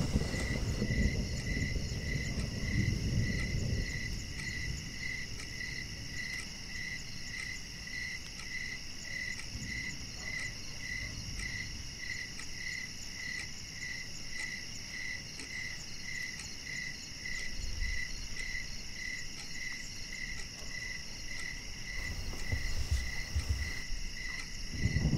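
Crickets chirping: a regular high chirp about one and a half times a second over a steady insect trill. A low rumble underneath is stronger in the first few seconds and again near the end.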